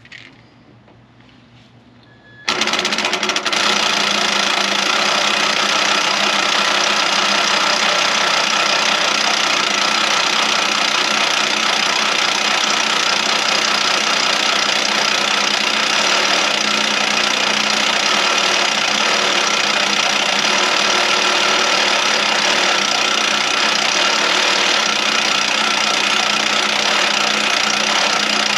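Power drill starting about two and a half seconds in and running steadily under load, boring a hole through a steel bar.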